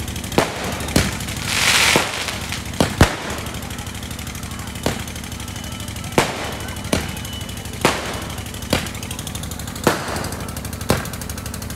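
Fireworks: aerial shells launched and bursting, sharp bangs at irregular intervals about once a second, with a brief hiss about a second and a half in.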